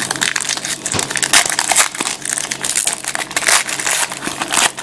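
Crinkling and crackling of a foil trading-card pack wrapper being torn open and handled, in a quick, irregular run of crackles.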